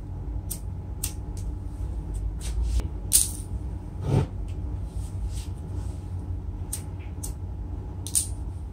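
A gas brazing torch being lit: sharp clicks of the igniter, about one or two a second, over a low steady rumble, with two louder clicks, one a few seconds in and one near the end.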